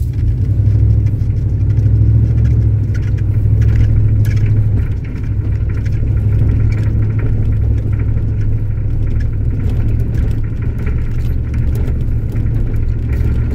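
First-generation Dodge Ram D150 pickup's 360 V8 running steadily, a deep engine rumble, with a brief dip in loudness about five seconds in.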